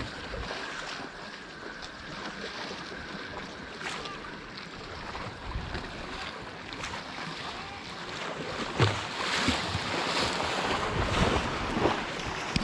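Sea water washing and lapping at the shore, with wind noise on the microphone. Several short sharp knocks and clicks come in the last few seconds.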